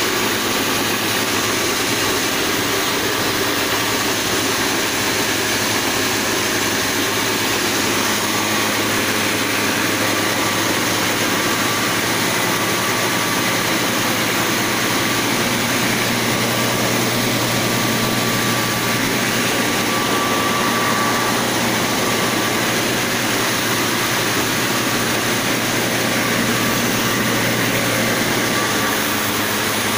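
A grain mill with a hopper-fed round grinding housing running steadily. It gives an even, loud grinding noise over a constant low hum.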